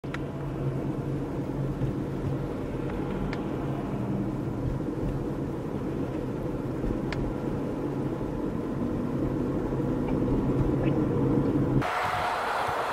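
Steady low rumble of an idling vehicle engine, with rough wind noise over it. Near the end the sound changes abruptly to a brighter hiss.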